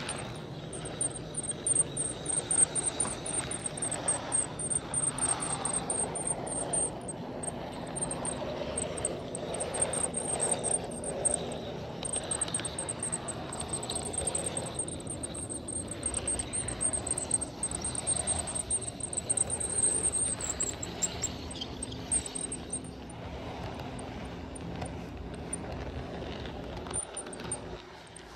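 HO-scale model train running along the track, a steady rolling rumble with faint rail clicks. Over it, a rapid, high-pitched chirping runs until about 21 seconds in, then stops.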